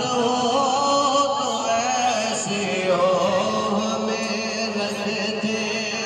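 A man chanting a devotional melody (naat) into a microphone, with long held notes that waver and slide in pitch.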